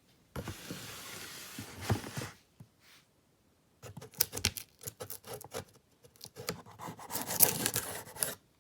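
Cardboard shoebox being opened and handled: a steady rubbing scrape lasting about two seconds, then after a short pause a run of rustling with sharp clicks.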